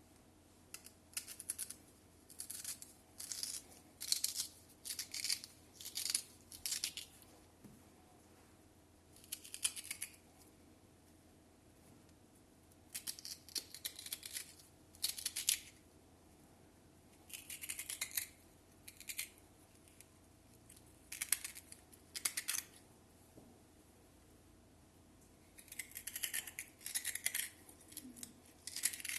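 A spoon scraping and scooping out the crisp flesh of a black radish. Quick rasping strokes come in groups, with pauses of a second or two between them.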